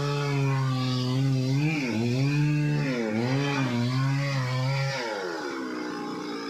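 Chainsaw engine running at high revs, its pitch dipping and recovering several times as it loads up in a cut, then winding down to a lower idle about five seconds in.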